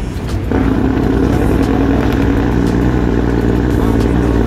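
Inline-six 12.7-litre Detroit Diesel engine of a cabover truck running under way, heard from inside the cab. Its drone steps up in loudness about half a second in and then holds steady.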